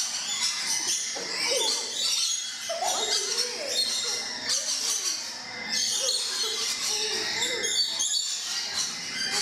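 Rainbow lorikeets screeching and chattering, a dense mass of shrill overlapping calls.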